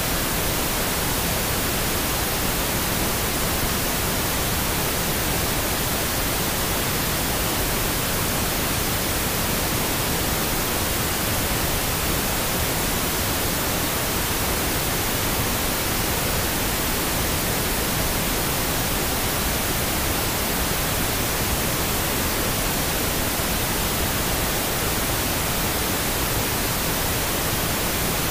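Steady pink noise, an even hiss that does not change, laid as the background bed of a subliminal audio track.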